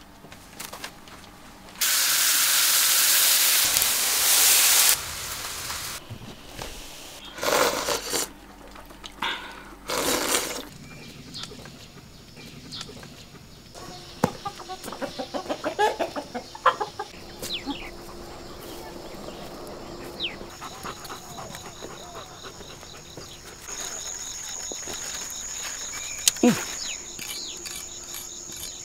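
Chickens clucking, with a flurry of short clucks about halfway through, then a steady high insect buzz that sets in and grows stronger in the last third. Near the start a loud rushing noise lasts about three seconds, followed by a couple of short noisy bursts.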